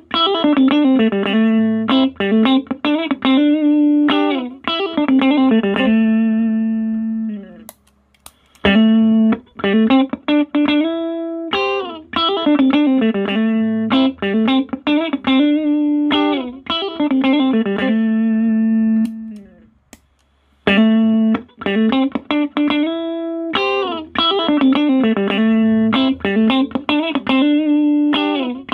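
Sterling JP60 electric guitar played clean through a Roland Cube amp and a compressor pedal: a single-note melodic phrase with slides between notes. The phrase stops briefly twice and is played again the same way each time.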